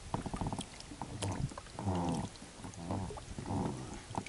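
Faint, muffled voice speaking in short phrases, with a few light knocks.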